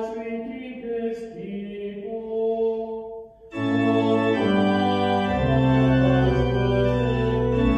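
Church organ music. A sung, organ-accompanied phrase of the liturgy ends about three and a half seconds in, and the organ goes straight into full chords; deep pedal bass notes join about two seconds later.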